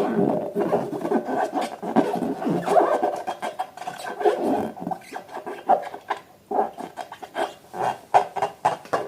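Glossy slime being squeezed and worked by hand, with irregular wet clicks and small pops. They come thickly at first and thin out to separate pops in the second half.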